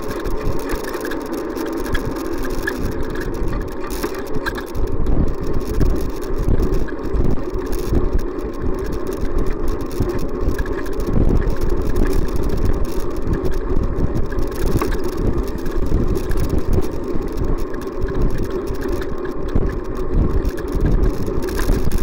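Wind buffeting and road rumble on a bicycle-mounted camera while riding, with car engines running close behind.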